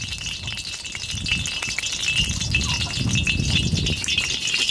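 Spoonfuls of ghee dropped into hot oil in a pan, sizzling and crackling steadily over a low rumble.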